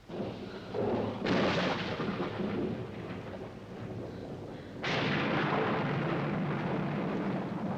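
Thunderstorm sound effect: rain with two sudden thunderclaps, one about a second in and another about five seconds in, each rolling on afterwards.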